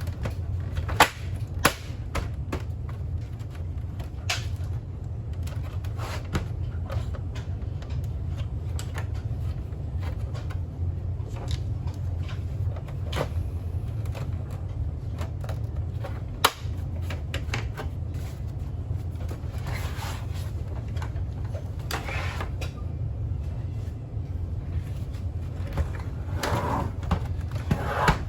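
Scattered sharp clicks and knocks of small parts and tools being handled during a coffee-machine repair, over a steady low hum.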